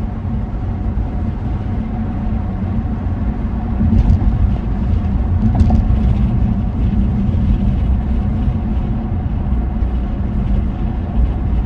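Steady engine and road drone of a BMW 540i with a big single turbo, heard from inside the cabin while cruising; it gets a little louder about four seconds in.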